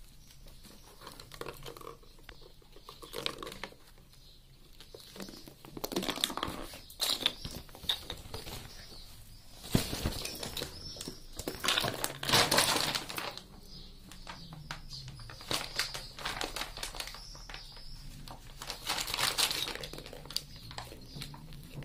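A ferret rummaging and playing among its toys: irregular rustling and crinkling of a fabric play tunnel and toys, with scattered light clicks and knocks. The rustling comes in louder spells now and then.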